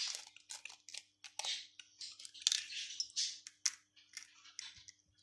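A hen's egg being tapped against a glass and cracked open by hand: a run of irregular sharp clicks and short crackles of breaking eggshell, the loudest about two and a half seconds in.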